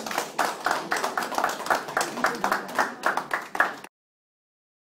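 A small audience clapping, with separate hand claps heard in a quick, uneven patter. The clapping cuts off abruptly about four seconds in.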